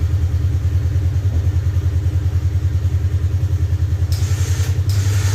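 Polaris RZR side-by-side's engine idling steadily with a fast, even low pulse, freshly started. About four seconds in a hissing noise joins it.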